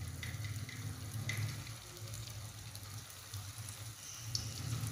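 Potato snacks deep-frying in hot oil in an aluminium kadai: a steady sizzle with scattered crackles, growing louder near the end as fresh pieces are dropped into the oil. A low steady hum runs underneath.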